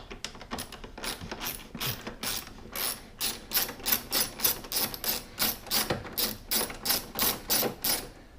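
Hand ratchet with a T30 Torx bit clicking in a steady rhythm, about three clicks a second, as a bolt is backed out. The clicks grow louder about two seconds in.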